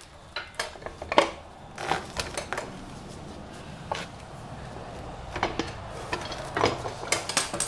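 Irregular metallic clinks and knocks as a motorcycle's rear wheel and sprocket assembly is handled and shifted in the swing arm. The knocks are loudest about a second in, with a quick cluster near the end.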